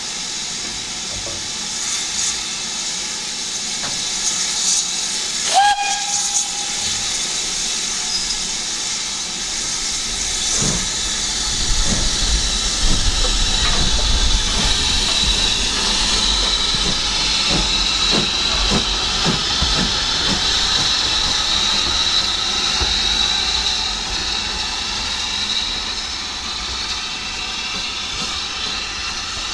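Steam locomotive letting off steam with a steady hiss, and a short whistle toot about six seconds in. From about eleven seconds a low rumble with irregular beats joins the hiss.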